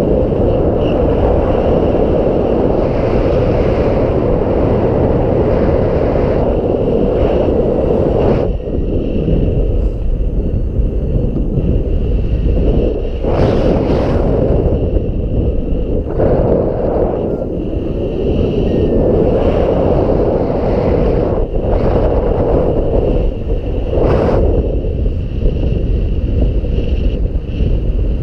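Strong gusting wind buffeting the microphone: a continuous loud rumble that swells and dips with the gusts, with brief harsher surges about 13 and 24 seconds in.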